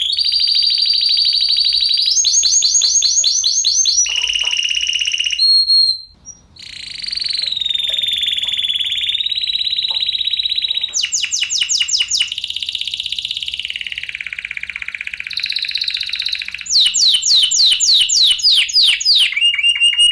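Spanish Timbrado canaries singing: long high metallic trills and rolls of rapid repeated notes that shift in pitch from phrase to phrase. There is a brief break about six seconds in.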